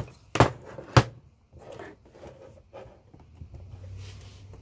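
Two sharp knocks about half a second apart, then lighter clicks and scraping as tools and metal parts are handled while the massager is being dismantled.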